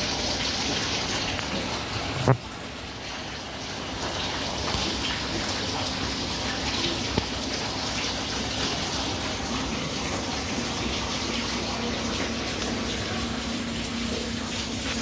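Steady rushing water-like noise of a large aquarium tank's circulation, with a single sharp knock about two seconds in and a faint low hum joining in the second half.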